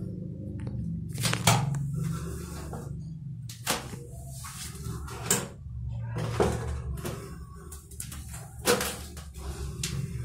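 A kitten hissing at a cornered mouse in about five short, sharp bursts, over a low steady hum.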